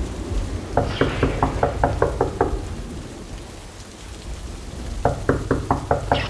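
Knocking on a door in two runs of quick knocks, about five a second, the first starting about a second in and the second near the end. Steady heavy-rain noise runs underneath.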